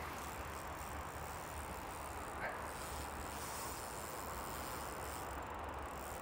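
Steady outdoor background noise: a low rumble under an even hiss, with no distinct event standing out.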